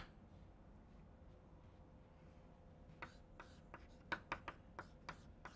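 Chalk writing on a blackboard: after a near-silent start, a run of short taps and scrapes of the chalk begins about three seconds in.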